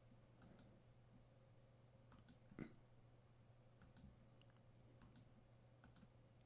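Near silence with faint, scattered computer mouse clicks while theme options are picked, the loudest about two and a half seconds in, over a low steady hum.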